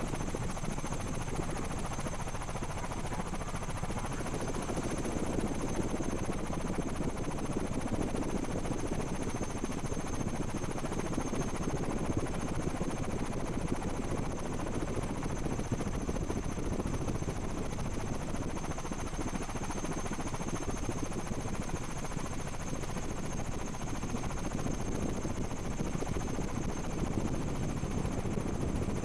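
Steady, unbroken whirring of a rotor aircraft carrying the camera, heard from on board, with a thin high whine held throughout.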